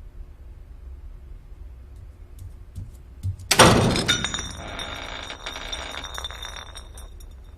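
Cartoon crash sound effect: a few light clicks, then one loud smash about three and a half seconds in, followed by about three seconds of ringing, tinkling debris that fades away.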